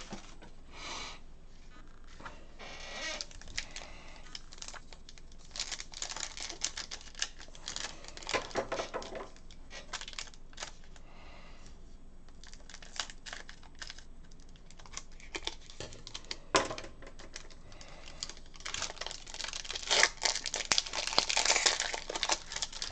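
Stiff chrome trading cards being handled and flipped through by hand, clicking and sliding against each other in quick irregular taps, densest near the end, with some crinkling.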